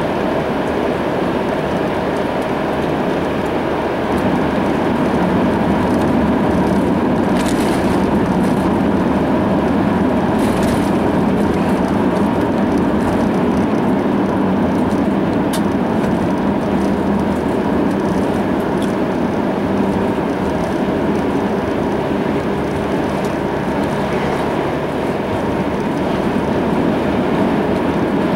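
Steady road and engine noise heard inside a moving car's cabin at highway speed. It grows a little louder about four seconds in.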